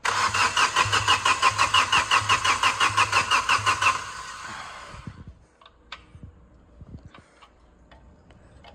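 Hyundai Verna diesel engine being cranked on its starter motor for about four seconds without firing, a rapid, even rhythm of compression strokes that winds down and stops. Its injector connectors are unplugged while air is bled from the injector lines after hydrolock, so it cannot catch. A few light clicks follow.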